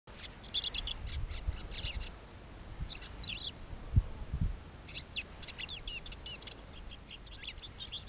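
Woodchat shrike singing: quick, scratchy chattering phrases in three spells. Low thumps come in between, the loudest about halfway through.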